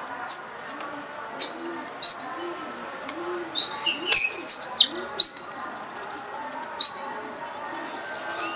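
Domestic pigeons cooing in a steady low run, with short, sharp high chirps from small birds about once a second, several in quick succession around four seconds in.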